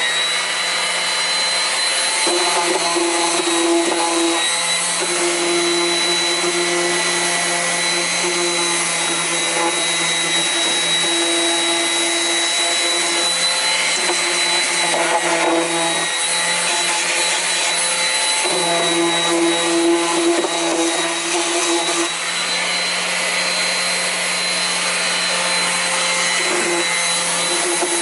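Electric sander with 120-grit paper running steadily while it smooths the freshly cut edges of the coop's nesting baskets. A band in the motor's sound drops out and returns every few seconds as the sander is pressed and shifted.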